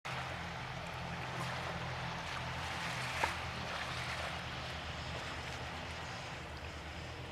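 Steady outdoor background noise with a low, even hum underneath, and a single brief tick about three seconds in.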